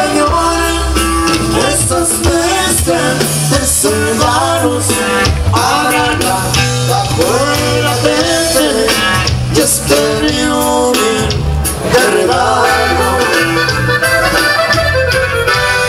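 Norteño band music with accordion leading the melody over a bouncing bass line and steady dance beat.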